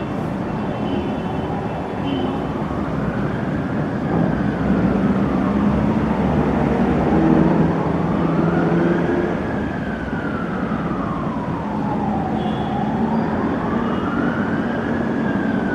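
An emergency vehicle siren wails in slow rises and falls, about three cycles, over the steady hum of street traffic.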